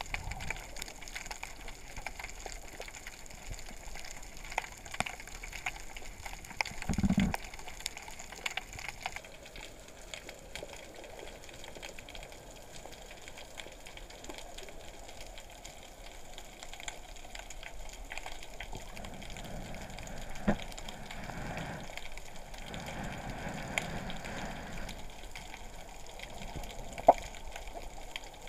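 Underwater ambience picked up by a submerged camera: a steady crackling hiss full of tiny clicks, with a low thump about seven seconds in, a few low swells of noise later on, and one sharp click near the end.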